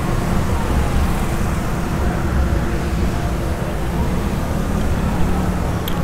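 Motorbike traffic: engines running in a steady, loud drone.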